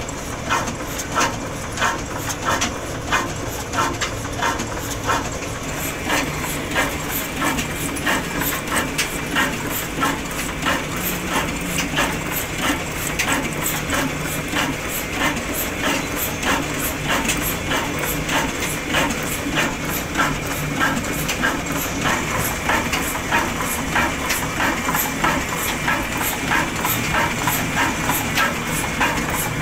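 Ruston Hornsby stationary diesel engine running slowly and steadily: an even beat of knocks from the firing strokes and the clattering valve gear, a couple each second, over a low rumble.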